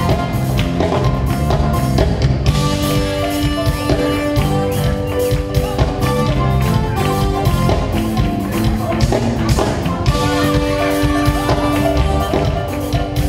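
Music with a steady drum beat and bass, and long held notes twice.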